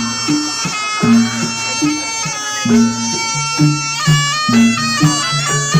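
Jaranan music: a shrill double-reed horn, the slompret, plays a melody of held notes that step up and down, over short repeated low notes from the gong-chime accompaniment.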